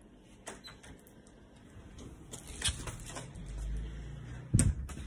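Handling noise from a phone held against a sweater while the person carrying it moves: fabric rubbing, scattered small clicks, and a sharp knock near the end.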